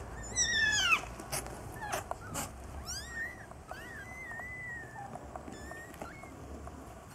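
Newborn Norwegian Forest kittens mewing: a string of short, high-pitched cries, the first falling in pitch and the later ones rising and falling, with a few sharp clicks in between.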